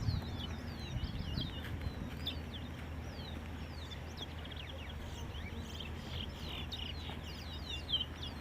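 Caged twa-twa (large-billed seed finches) singing in a bird-racing contest: a continuous stream of quick, high, falling chirps and whistled notes, over a steady low rumble.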